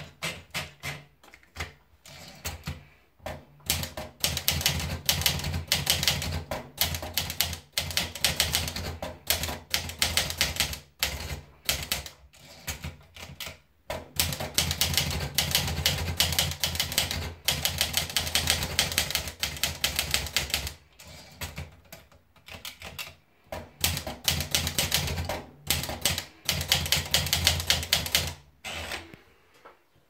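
Olivetti Lettera 35 manual portable typewriter: a few separate clicks as a sheet is wound onto the platen, then fast runs of key strikes. The typing breaks off briefly twice, about thirteen and twenty-two seconds in, and stops shortly before the end.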